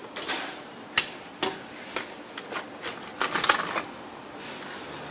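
Sharp plastic clicks and knocks from the cover and cartridge door of an HP LaserJet P1102 laser printer being opened and handled. The loudest click comes about a second in, then scattered clicks, then a quick rattling cluster about three seconds in.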